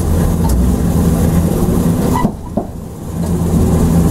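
Streetcar running, heard from the driver's cab: a steady low traction-motor hum with a few light clicks. The hum drops away a little after two seconds in and comes back about a second later.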